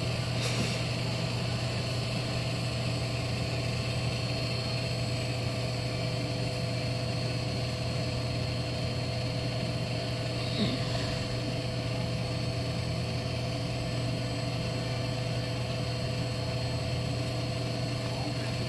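Steady low mechanical hum with several faint steady tones above it, the constant background drone of a large store's building machinery.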